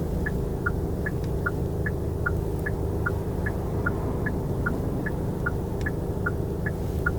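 Car turn-signal indicator ticking steadily inside the cabin, about two and a half clicks a second alternating between two slightly different pitches, over a low engine and road rumble.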